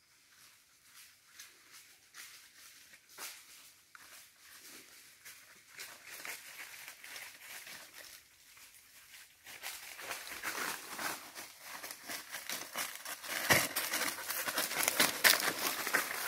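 Footsteps rustling and crunching through dry fallen leaves, faint at first and much louder from about ten seconds in.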